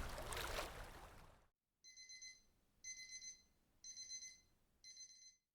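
Lapping water and wind fade out, then a digital watch alarm beeps in four short bursts about a second apart, each a quick run of high beeps. The alarm signals the end of a 25-minute Pomodoro study period.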